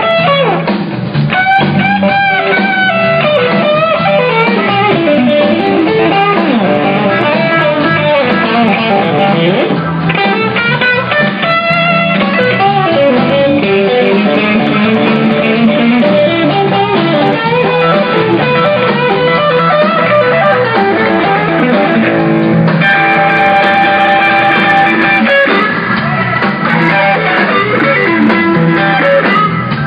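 Live rock band: a Stratocaster-style electric guitar plays lead lines with bent notes over bass guitar and drums.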